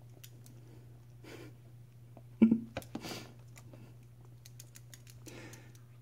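Light, irregular clicks and taps of a white-bellied caique's beak and claws on a hard vinyl floor as it pushes a rubber ball, with one louder knock about two and a half seconds in.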